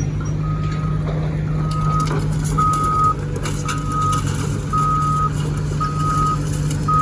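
A heavy machine's back-up alarm beeps steadily, about one half-second beep per second, over an engine running underneath.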